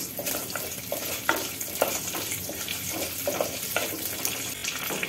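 Whole spices (cumin, dried red chillies and bay leaves) sizzling in hot mustard oil in an earthen clay pot, while a wooden spoon stirs them, scraping and knocking against the clay several times.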